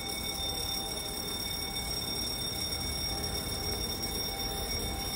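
Railway level-crossing warning alarm sounding a steady high tone over a low rumble.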